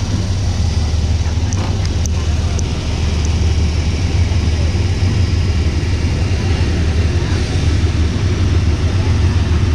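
Diesel locomotive engine running with a steady low rumble, with a few short metallic clicks about two seconds in.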